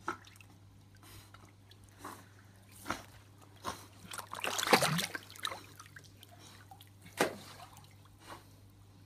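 Pool water splashing and dripping as a cattle dog paddles along with a foam pool noodle in its mouth. There are scattered single splashes and a busier run of splashing about four to five seconds in.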